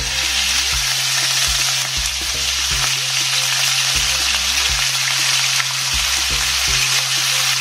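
Beef strips and sliced vegetables sizzling steadily in hot oil in a frying pan, being turned with a spatula.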